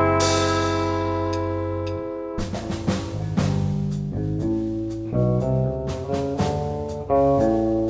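Band music with drum kit, bass and guitar: a held chord rings for about two seconds, then a moving bass line with drum hits carries on.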